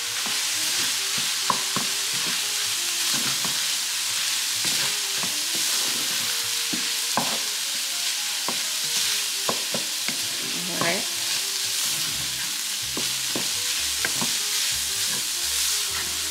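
Crumbled sausage with garlic and dried herbs sizzling steadily in a nonstick pan while a wooden spoon stirs it, with many short scrapes and knocks of the spoon against the pan.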